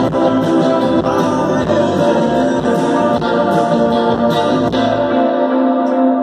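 Live band playing a song, with electric guitars, bass, drums and a sung vocal. About five seconds in, the drums and bass stop, leaving a held chord ringing.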